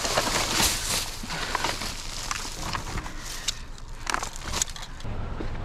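Plastic trash bags rustling and crinkling in irregular crackles as gloved hands rummage through a dumpster. About five seconds in, a low steady rumble comes in.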